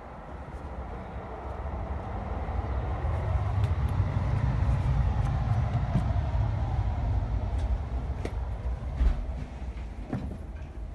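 Low rumble of a passing vehicle that builds to its loudest midway and fades away, with a few light clicks near the end.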